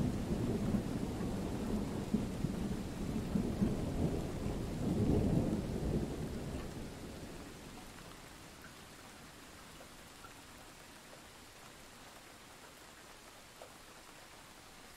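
Thunder rumbling over steady rain, swelling about five seconds in, then dying away by about eight seconds and leaving only the faint hiss of the rain.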